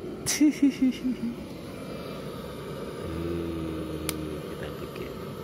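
A child's short spoken reply, then a steady low hum for about a second that ends in one sharp click, from a butane canister torch being used to light a wood campfire.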